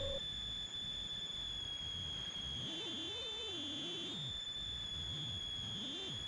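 A steady high-pitched whine over a faint hiss, wavering for about a second midway.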